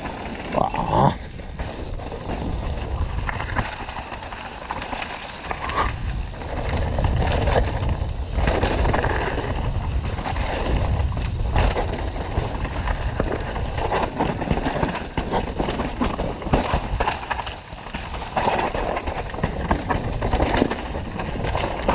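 Mountain bike riding down a rough trail: tyres rolling over dirt and rocks, with frequent knocks and rattles from the bike over bumps. Wind rumbles on the action camera's microphone.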